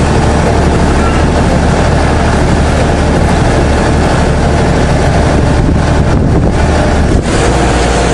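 Ferry engine running steadily with a low, even drone, heard on board as the boat moves along the river, with wind rushing over the microphone.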